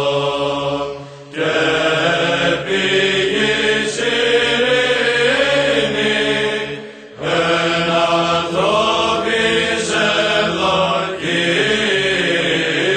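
Byzantine chant in Greek: a voice line moving in ornamented melody over a steady held drone (ison). There are two short breaks in the phrasing, about a second in and about seven seconds in.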